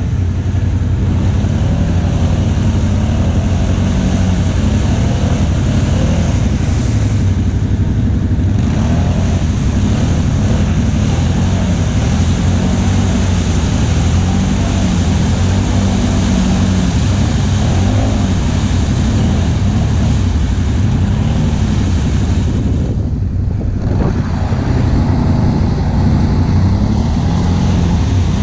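ATV engines running, the pitch rising and falling over and over as the throttle is worked, over a steady rush of noise.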